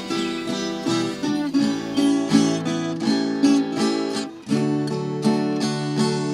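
Instrumental intro of a Brazilian sertanejo song: acoustic guitar strumming chords in a steady rhythm, with a brief dip about four seconds in.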